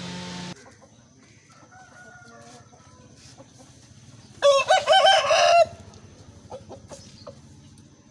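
Aseel rooster crowing once, a loud crow of a little over a second starting about four seconds in, with fainter calls a couple of seconds before it.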